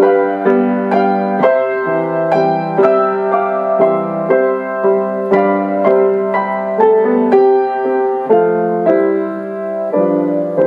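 Piano playing the instrumental interlude of a hymn: chords struck in a steady beat, about two a second, with no singing.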